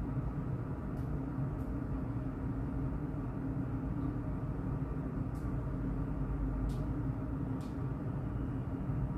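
Ceiling fan running with a steady low hum, with a few faint ticks over it.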